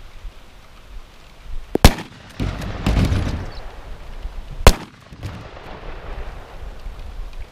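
Two shots from a 12-gauge Mossberg Shockwave firing number 4 lead birdshot at an MDF shield, about three seconds apart. Each is a single sharp crack, the first followed by a rolling rumble.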